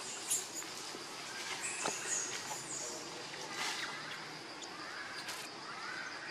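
Baby macaque crying: several short, very high-pitched squeals that fall in pitch, over a steady high whine.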